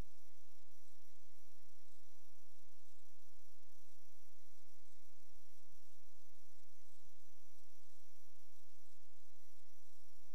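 Steady electrical mains hum with a thin high whine above it, picked up in the sewer inspection camera's recording; it does not change at all.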